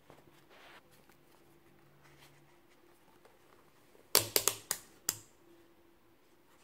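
Rotary range selector dial of a HoldPeak HP-4070L LCR meter being turned, clicking through its detent positions: a quick run of about five sharp clicks starting about four seconds in.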